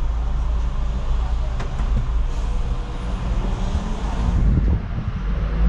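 Solaris Urbino 18 articulated city bus on the move, heard from inside: a steady low engine and drivetrain rumble with road noise.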